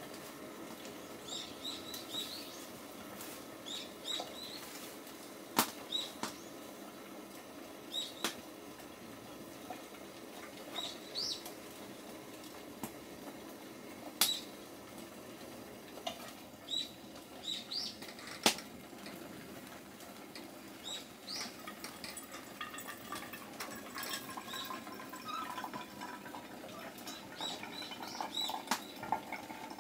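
Short, high bird chirps, often quickly rising, every second or two over a steady low hum, with a few sharp clicks or knocks.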